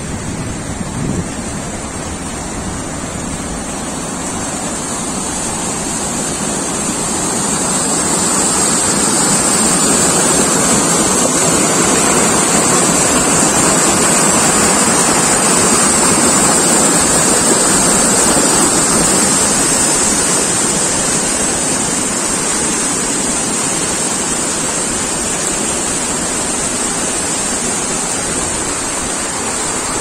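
Shallow mountain stream rushing over rocks, a steady wash of water that grows louder about a third of the way in and eases off again later.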